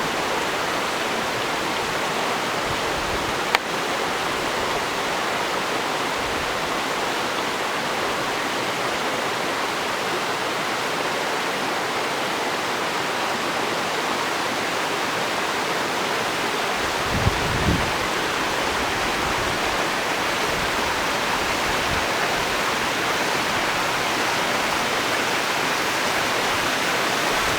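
Waterfall pouring steadily, an even rushing of falling water. A sharp click a few seconds in and two low bumps a little past the middle sound over it.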